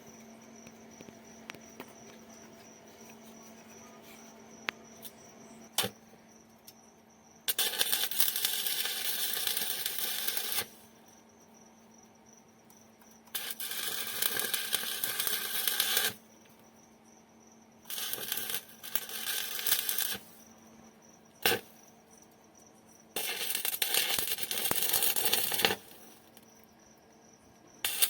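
Electric arc welding: four runs of crackling, sizzling arc, each two to three seconds long, with a fifth starting at the very end. A faint steady hum and an occasional click fill the gaps between runs.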